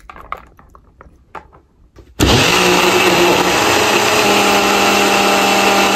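Faint handling clicks and rustles, then a hair dryer switched on about two seconds in, blowing loudly and steadily with a constant motor hum.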